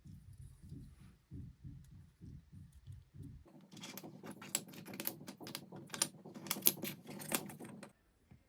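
Amiga keyboard keys being pressed in a rapid run of clicks, like fast typing, from about three and a half seconds in until they stop suddenly near the end. Before that come soft, low thumps about four a second.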